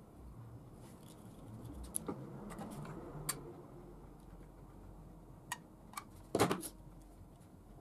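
Handling noises of small plastic parts and a hot glue gun on a wooden tabletop: light rustling and a few sharp clicks and ticks, then a louder knocking clatter about six and a half seconds in.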